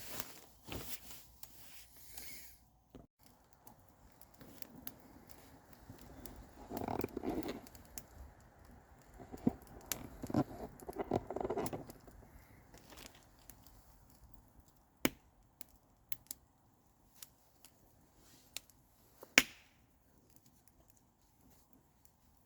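Rustling, crinkling handling sounds for several seconds, followed by a few isolated sharp clicks.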